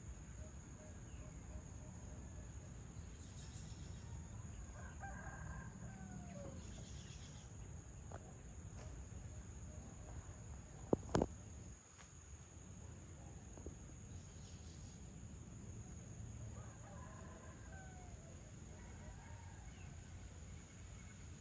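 Roosters crowing in the distance, two bouts of calls about a third of the way in and again about three-quarters through, over a steady high-pitched insect drone and a low rumble. Just past the middle comes a brief sharp double click, the loudest sound.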